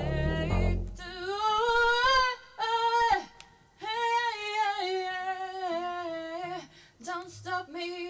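A woman singing long held notes into a handheld microphone, in several phrases with short breaks between them. A brief low rumble sits under the first note.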